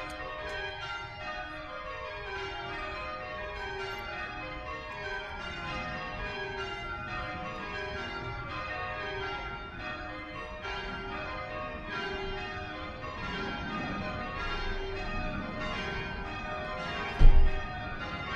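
Church bells rung in changes: a steady run of strikes, each round stepping down through the bells. A brief loud low thump comes near the end.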